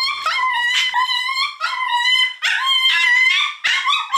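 A small dog screaming: a string of shrill, high-pitched cries, about five in four seconds, each sliding up at the start and then held, with short breaks between. The owner says he cries like this now and then for no reason.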